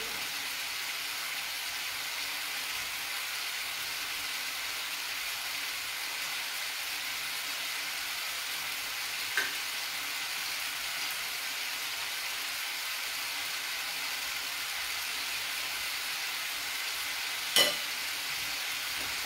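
Turkey rolls frying in sauce in a pan, with a steady sizzle. There is a faint click about halfway through and a louder, sharp knock near the end.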